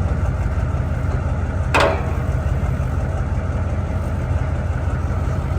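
1994 Ford F-250's 7.3-litre V8 diesel engine running with a steady low rumble. A single short, sharp knock sounds a little under two seconds in.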